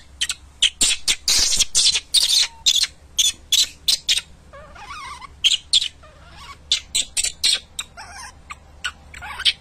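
Baby macaque squeaking and squealing in quick runs of short, high-pitched cries, several a second.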